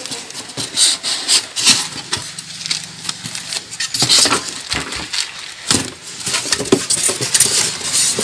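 Ceiling fan packaging being opened by hand: irregular rustling, scraping and knocking of cardboard and thermocol.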